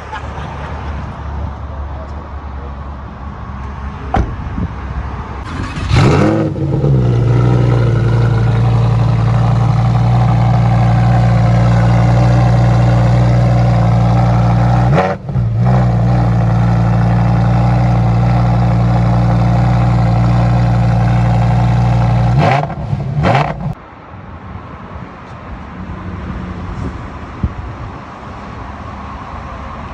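Lamborghini Huracán STO's naturally aspirated V10 running: quieter at first, then it revs up sharply about six seconds in and settles into a loud, steady high idle, broken once briefly midway. It drops back to a quieter idle about seven seconds before the end.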